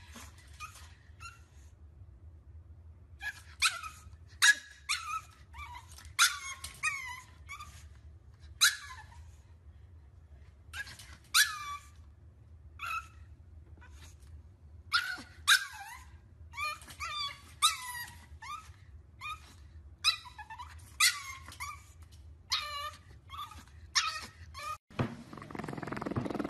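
Pug puppy yipping and whining in short, high-pitched barks, one or a few at a time with pauses between. About a second and a half before the end they give way to a louder steady noise.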